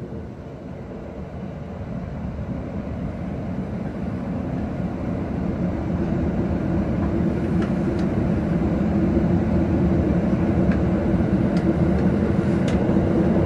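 Tokyo Metro Marunouchi Line subway train running through a tunnel. The rumble of wheels and motors grows steadily louder, with a few faint sharp clicks in the second half.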